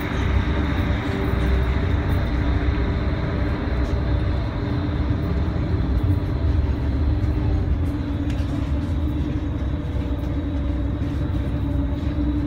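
Steady low rumble and hum of the ferry's engines, heard inside the passenger cabin.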